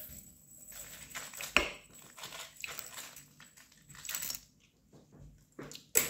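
Kitchenware being handled: a few sharp clinks and knocks, the loudest about one and a half seconds in and again just before the end, with quieter handling noise between.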